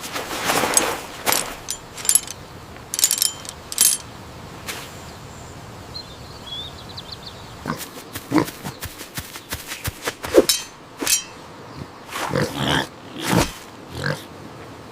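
Cartoon sound effects and nonverbal vocal sounds from a cartoon pig character: a burst of rushing noise at the start and several sharp clicks, then a string of short voiced sounds in the second half.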